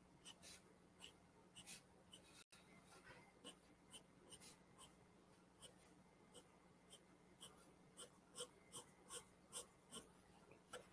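Faint scratching of a graphite pencil on paper in short, repeated shading strokes, about two or three a second, a little louder near the end.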